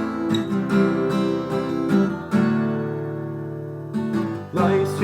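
Guitar strumming chords. One chord is left to ring for about a second and a half midway, then the strumming picks up again.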